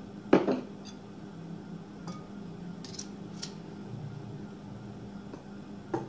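Metal wire whisk knocking and scraping against a glass mixing bowl as it starts stirring powdered sugar into ghee. One sharp knock comes about half a second in, then scattered light clicks, over a steady low hum.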